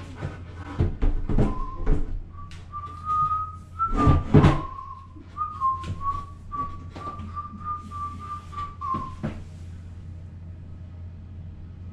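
A man whistling a tune, a single tone that steps a little up and down and stops about nine seconds in. Mixed with it are a few knocks and clunks as a sink basin is set down and seated on a vanity cabinet, loudest about four seconds in.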